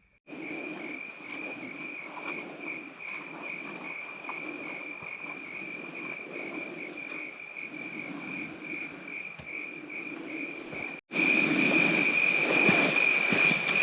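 Chorus of insects in the woods, a steady high pulsing trill. It drops out for a moment about eleven seconds in and comes back louder.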